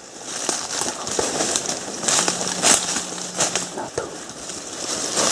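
Rustling and crackling of dry grass and stalks being pushed aside and stepped on while walking through undergrowth, with a faint low steady hum for about a second and a half in the middle.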